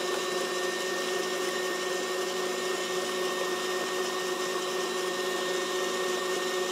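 Electric stand mixer running steadily at one speed, a constant-pitch motor whine, its beater creaming thick butter-and-egg cake batter in a stainless steel bowl.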